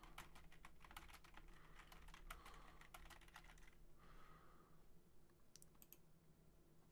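Faint typing on a computer keyboard: a quick run of key clicks that stops about four seconds in, then a few single clicks near the end.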